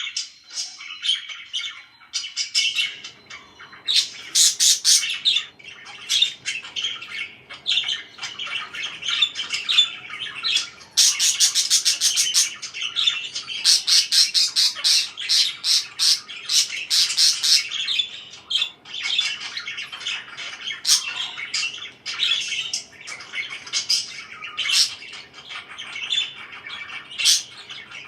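Pet parakeets chirping and squawking in quick, overlapping calls, with a busier stretch of rapid chatter in the middle.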